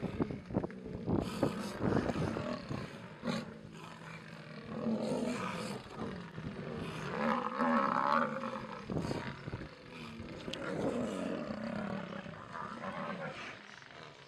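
Lionesses growling and snarling in a run of repeated calls, loudest about seven to eight seconds in, as they face off with a Cape buffalo.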